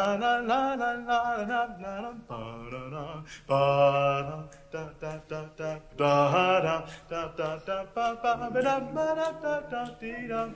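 Unaccompanied voice singing an improvised melody on 'la' syllables, with a lower held vocal note sounding beneath it for much of the time.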